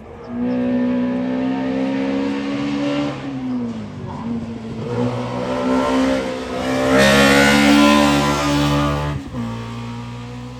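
VW Polo hillclimb race car running hard at high revs, with brief dips in engine pitch at its gear changes. It gets loudest about seven seconds in as it passes close, then the engine note drops and fades near the end.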